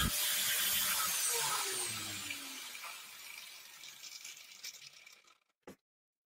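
Angle grinder with a 125 mm cutting disc, mounted in a homemade chop-saw stand, switched off after a cut and spinning down: its whine falls in pitch and fades away over about five seconds. A small click or two follow near the end.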